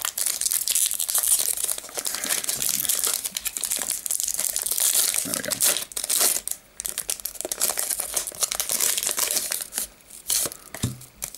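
Plastic Pokémon booster pack wrapper crinkling loudly as it is torn open, then quieter, intermittent rustling and handling over the last few seconds.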